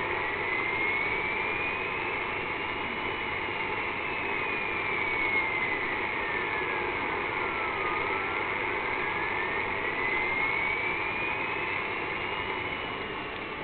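A slow wailing tone received on a Realistic PRO-2006 scanner tuned to 126.000 MHz AM, over steady radio static hiss: it glides up and down like a police siren, one rise and fall about every ten seconds. Its source is unidentified.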